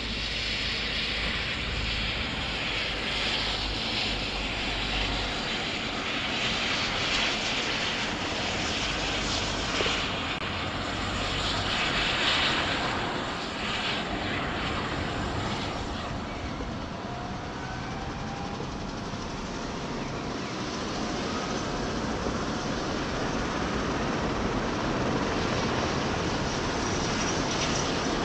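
Airbus EC135 air-rescue helicopter's twin turbine engines and rotor running up on the helipad: a steady rushing turbine noise with a faint rising whine about halfway through, growing slightly louder toward the end.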